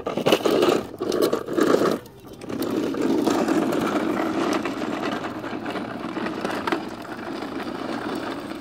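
Hard plastic wheels of a child's toy push cart rolling over a concrete driveway: a few rough, uneven bursts in the first two seconds, then a steady rumbling rattle that slowly fades.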